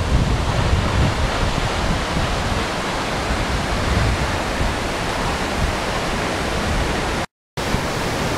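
Waterfall and cascading stream: a steady, loud rush of falling water. It cuts out to a split second of silence a little after seven seconds in.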